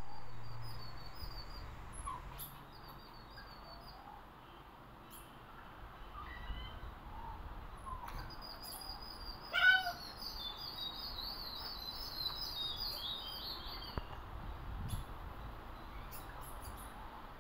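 Rufous treepie calling among other birdsong: high twittering and scattered short notes, with one loud, short call about ten seconds in.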